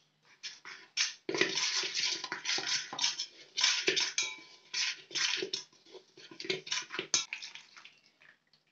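Metal kitchen utensils scraping and clinking in rapid, irregular strokes, with a little ringing now and then. It starts about a second in and stops just before the end.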